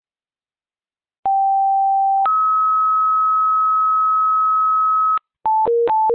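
Fire dispatch radio alert tones: a two-tone page, a lower steady tone for about a second followed by a higher tone held about three seconds, that alerts fire stations to a call. Near the end a rapid high-low warble tone begins.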